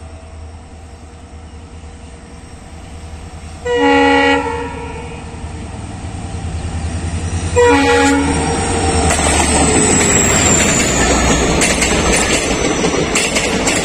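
Diesel locomotive approaching with its engine rumbling. It sounds its horn twice, about four and eight seconds in, the second blast shorter. It then runs past close by with its coaches, in a rising rush and the clatter of wheels on the rails.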